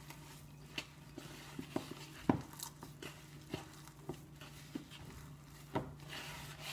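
Hands kneading soft dough in a plastic bowl: irregular soft squishes and pats about every half second, with one louder knock about two seconds in, over a faint steady low hum.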